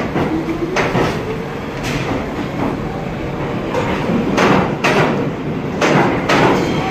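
New York City subway train moving along the platform, its wheels rumbling and knocking sharply and irregularly over the rail joints, with a faint rising whine in the first second.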